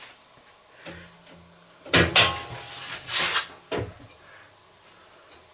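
Car tyre being worked off an alloy rim on a tyre-changing machine by hand: a few knocks and scrapes of the rubber tyre against the rim and machine, the loudest about two seconds in, with a brief low hum about a second in.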